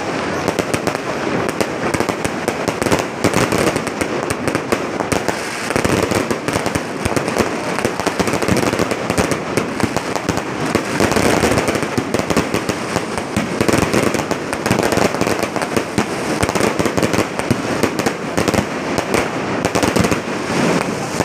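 Fireworks display going off in a continuous dense barrage of bangs and crackling with no pause.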